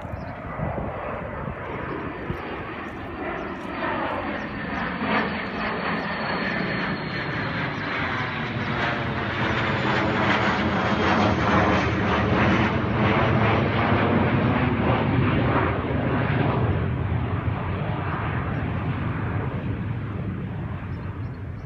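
Airplane flying over. Its engine noise builds to a peak about halfway through and then fades, and a high thin whine slides slowly down in pitch as it approaches.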